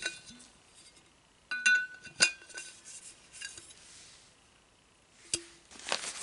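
Stainless steel water bottle and its metal screw cap clinking as the cap is handled: a few sharp metallic clinks, each with a short ring, about a second and a half in, two seconds in and again after five seconds.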